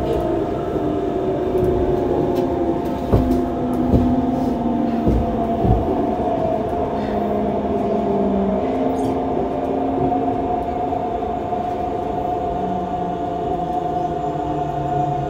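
Yokohama subway 3000A-series train with Mitsubishi GTO-VVVF inverter drive heard running from inside the car. A steady high whine sits over lower inverter tones that shift in pitch in steps. A few thuds come in the first six seconds.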